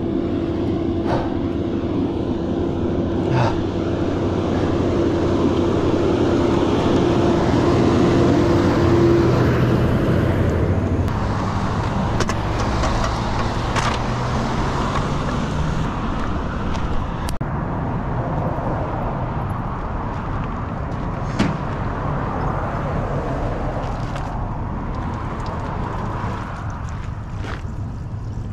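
A motor vehicle running with steady engine hum and road noise; the engine note rises slightly around the middle and then settles.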